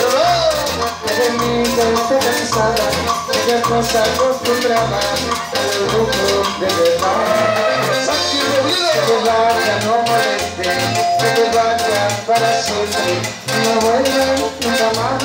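Live cumbia band playing an instrumental passage with a steady beat: acoustic guitar, electric guitar, timbales and cymbal, with a metal güiro scraping along in rhythm.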